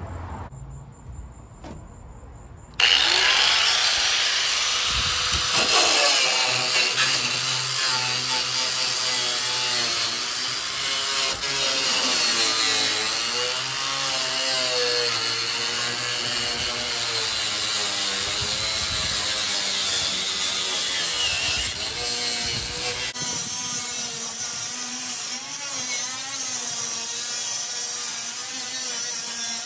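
Angle grinder with an abrasive cut-off disc starting about three seconds in and cutting through used corrugated tin roofing. It gives a loud, harsh whine whose pitch keeps wavering up and down as the disc is pushed along the cut.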